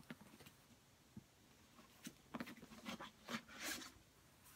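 Faint rustling and handling noises as crumpled packing stuffing is pulled out of a new leather boot. A few light clicks come first, and the rustles start about halfway through.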